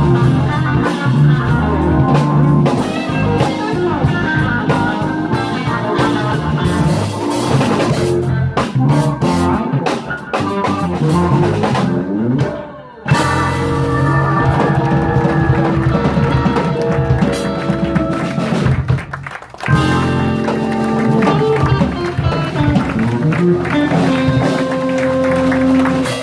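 Live band playing: electric guitar, keyboards and drum kit. The music breaks off for a moment about halfway through, drops out briefly again later, and ends on long held notes.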